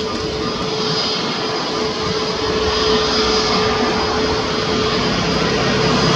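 Airbus A321neo's twin turbofan engines running at taxi power as the jet taxis closer: a steady whine with a held low hum and a high tone over a rushing noise, growing slightly louder.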